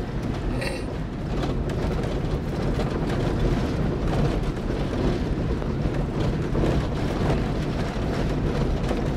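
Inside the cabin of a vehicle driving on an unpaved dirt road: a steady low rumble of engine and tyres, with small knocks and rattles throughout.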